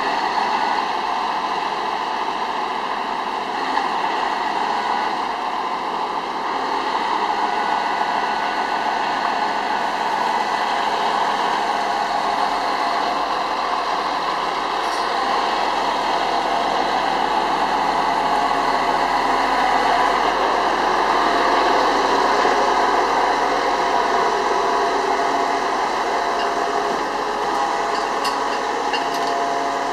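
Heavy recovery trucks' diesel engines running steadily at idle. A few faint clicks come near the end.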